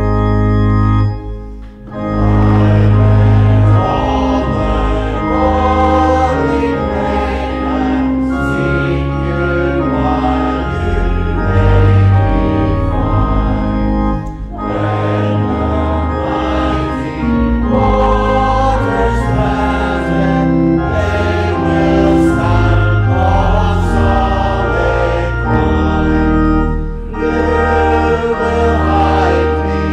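Church congregation singing a psalm in unison-style hymn phrases, accompanied by an organ. The music dips briefly about a second and a half in, between lines, then carries on with sustained notes.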